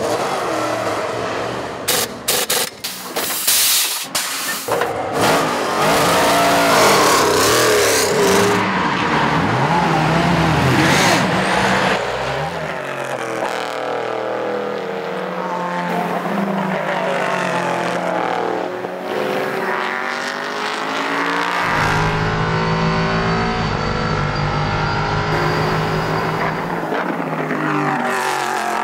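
Race cars at speed, engines rising and falling in pitch as they pass one after another, with gear changes. A few abrupt jumps between passes in the first seconds.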